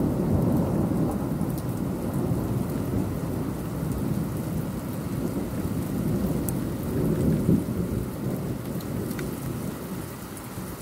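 Thunder rumbling over steady rain during a thunderstorm, the rumble swelling about seven seconds in and dying down near the end.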